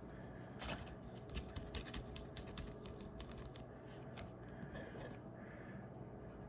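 Faint, scattered clicks and light taps of small hard objects being handled, several in quick clusters, over a low steady hiss.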